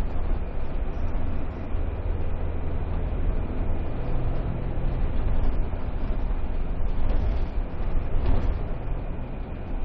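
Steady engine and road rumble of a moving vehicle, heard from inside the cabin.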